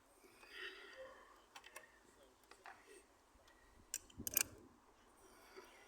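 Small metal spanner clicking and clinking on a car battery's terminal nut as it is being undone, with a quick cluster of sharp metal clinks about four seconds in.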